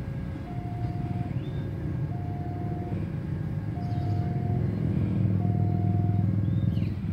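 Railway level-crossing warning alarm sounding a two-tone signal, a lower and a higher tone taking turns about every 0.8 seconds. Under it runs a rumble of engines that grows louder in the second half and eases near the end.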